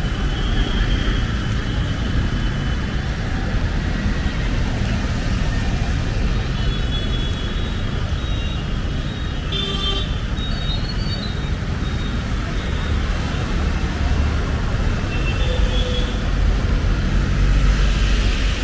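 Steady road traffic on a busy city road: engines and tyres of passing cars and buses, with a brief horn toot near the middle.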